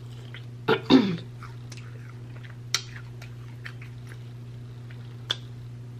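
A person chewing a bite of honey-glazed garlic lamb chop, with sharp wet mouth clicks every so often and a short throaty vocal sound about a second in. A steady low hum runs underneath.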